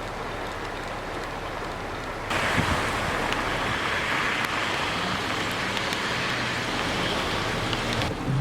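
Heavy rain and running water, a steady rushing hiss that jumps abruptly louder about two seconds in and drops back near the end, with a faint low vehicle engine hum under it in the louder part.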